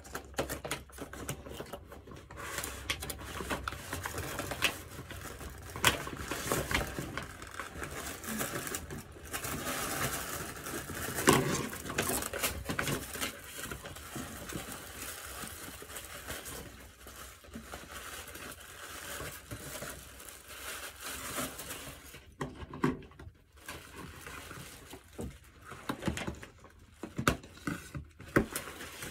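Rustling and crinkling of a wig's cardboard box and plastic packaging being opened and handled, with irregular small clicks and taps.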